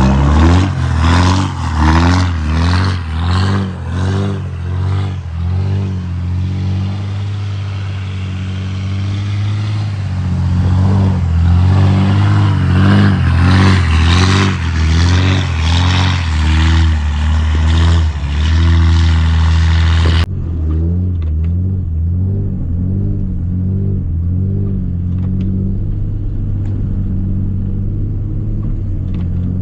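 Cummins diesel pickup engine pulling under way, its pitch rising and falling over and over as it revs up and eases off. About two-thirds of the way through the sound cuts sharply to a steadier, more muffled engine.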